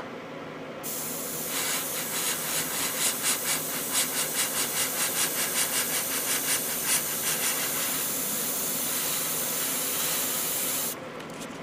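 Airbrush spraying paint: a steady hiss of air that starts about a second in and cuts off near the end, pulsing about three times a second for the first several seconds.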